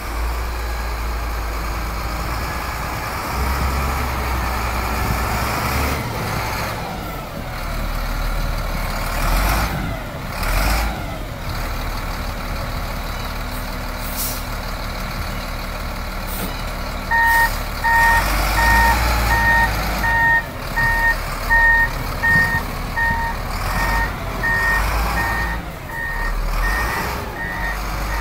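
Foton Lovol FL955F wheel loader's diesel engine running as the machine drives through snow. About two-thirds of the way in, its reversing alarm starts beeping, about one and a half beeps a second.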